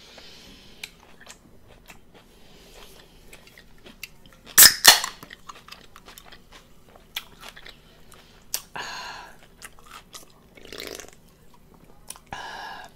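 Close-up chewing and mouth noises of a person eating. There are two loud, sharp crunches about four and a half seconds in and a few short, louder mouth sounds in the second half.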